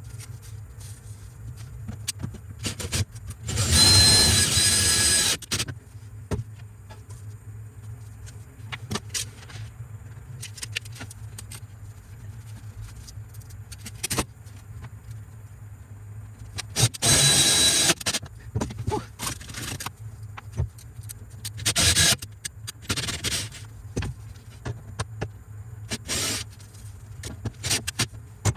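Cordless drill running in bursts while drilling holes to mount an inverter: a longer whine a few seconds in, then several shorter ones, with clicks and knocks of handling between them.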